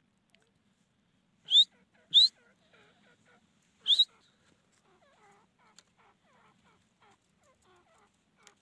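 Grey francolin (teetar) calling: three loud, short, harsh calls that rise in pitch, two in quick succession and a third about two seconds later, then a run of faint soft clucking notes.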